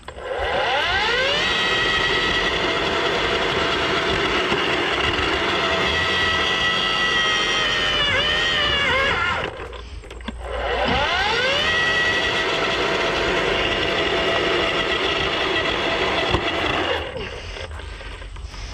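Ryobi 40V HP brushless cordless earth auger with an 8-inch bit digging a post hole: its motor and gearbox whine up to speed and run steadily, and the pitch briefly sags and wavers under load. The auger then stops, spins up again for a second run of about six seconds, and stops.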